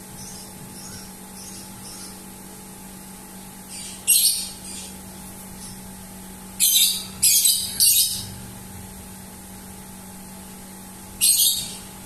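A lovebird giving short, sharp, high-pitched calls: one about four seconds in, three in quick succession a little past the middle, and one more near the end, with fainter chirps between. A steady low hum runs underneath.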